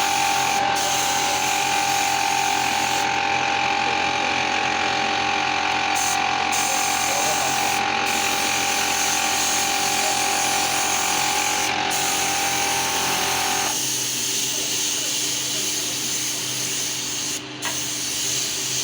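A small electric power tool's motor running steadily, its tone changing abruptly about 14 seconds in.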